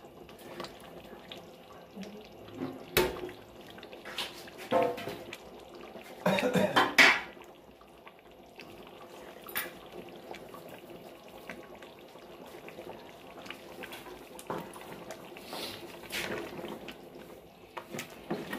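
A spoon stirring and clinking in a large aluminium pot of simmering chicken curry, with scattered knocks and a louder clatter about six to seven seconds in.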